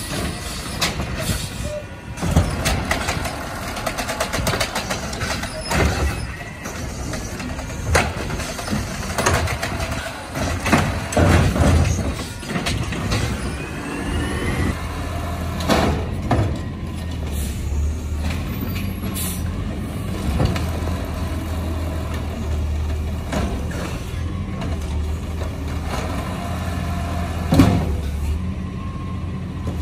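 Natural-gas automated side-loader garbage truck at work: its engine runs with air-brake hisses and sharp clanks as the mechanical arm grabs curbside bins. About halfway through, a steady low drone of the engine and hydraulics takes over while the arm lifts a bin, with one loud bang near the end as the bin is dumped.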